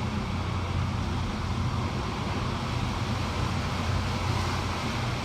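Hurricane winds blowing steadily, with a heavy low rumble of wind buffeting the microphone.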